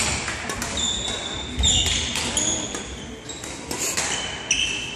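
Badminton rally: sharp racket strikes on the shuttlecock and short high-pitched squeaks of sports shoes on the hall floor, repeated every second or so and echoing in the large sports hall.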